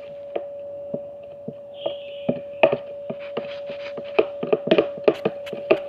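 Homemade slime being squeezed and worked by hand, giving a run of sharp little clicks and pops that come faster from about two seconds in, over a steady low hum.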